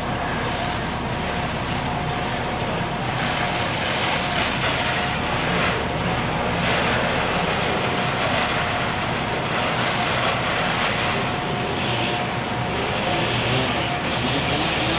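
Fire engine pumping water to hose lines: a steady engine drone with a thin steady whine through it, and the hiss of the hose streams spraying.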